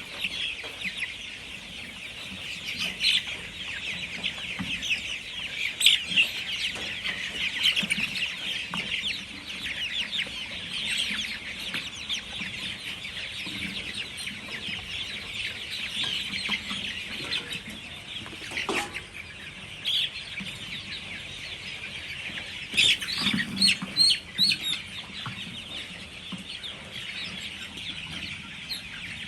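A flock of chickens clucking and calling, many voices overlapping without a break, with a few louder sharp calls or knocks near the end.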